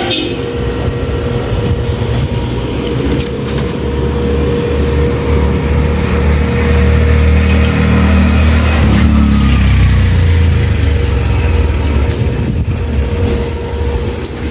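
Low engine rumble of a motor vehicle running, swelling louder partway through, with a thin steady hum alongside.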